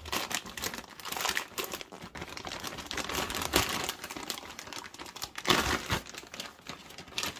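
Plastic crinkling and scraping, with scattered clicks, as a boiler's plastic condensate pipe is handled and pushed into place.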